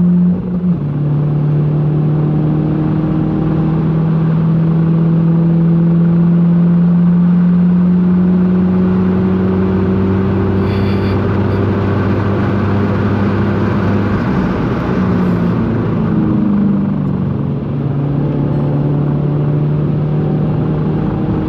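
Volkswagen Golf GTI engine pulling hard at speed, its pitch stepping down with a brief dip about half a second in, then rising slowly through a long pull, and stepping down again around sixteen seconds.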